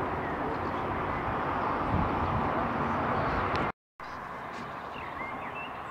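Steady outdoor rushing noise with no distinct source, cut off abruptly about three and a half seconds in by a brief silence. It then resumes slightly quieter, with a few faint high chirps.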